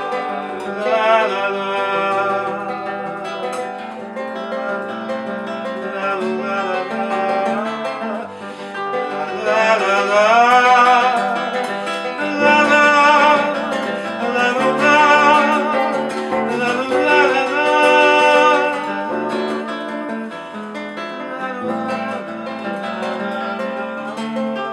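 Acoustic guitar playing an author's (bard) song passage, with a wavering melody line rising and falling over the chords through the middle.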